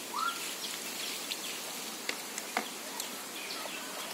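Outdoor garden ambience: small birds chirping briefly now and then over a steady insect-like hiss, with three light clicks about two to three seconds in.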